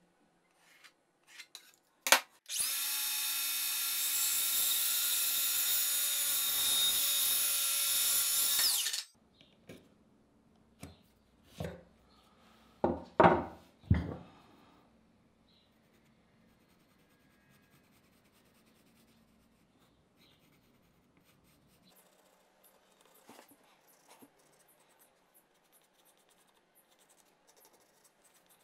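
A power tool clicks on and runs at a steady speed for about six seconds, then stops. A few sharp knocks follow, and near the end a pencil scratches faintly on plywood.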